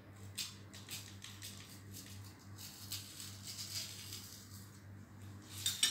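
A hand tool scratching along cardboard in a run of short, irregular strokes as the piece is marked or cut for folding, over a faint steady hum.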